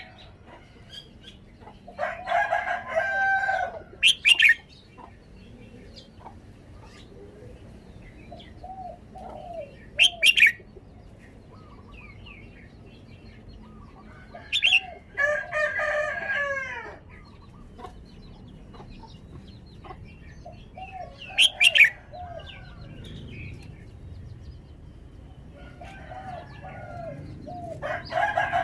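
Red-whiskered bulbul singing short, bright whistled phrases every few seconds. A rooster crows three times, with longer, lower calls.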